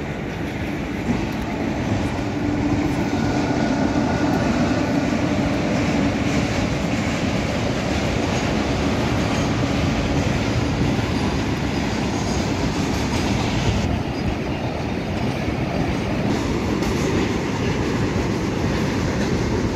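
Train running past on the railway line, a steady rumble that builds over the first couple of seconds and then holds.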